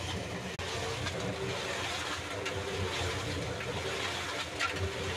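Small portable concrete mixer running, its drum turning with a steady motor hum while the wet concrete mix tumbles and sloshes inside.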